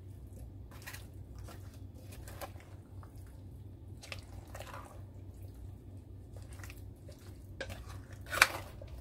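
Wooden spoon stirring a thick, creamy chicken and vegetable mixture in a slow cooker's crock: wet squelching with scattered scrapes, and one sharp knock near the end.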